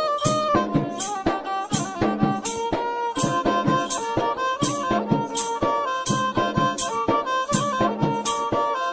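Background music: a held, stepping melody line over a steady, evenly spaced percussion beat.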